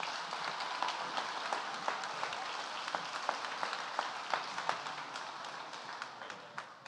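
Audience applause, a dense patter of many hands clapping that fades out near the end.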